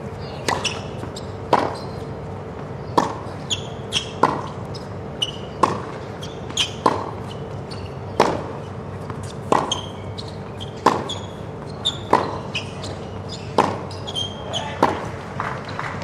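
Tennis ball struck back and forth by two players' rackets in a long baseline rally on a hard court, a sharp hit about every 1.3 seconds, with ball bounces and short high squeaks of shoes on the court between the hits.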